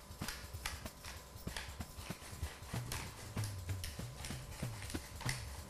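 Hand-twisted pepper grinder cracking peppercorns, a steady run of short sharp clicks, about three or four a second.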